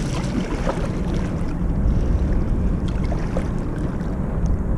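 Wind buffeting the microphone as a steady low rumble, with a few faint clicks in the second half.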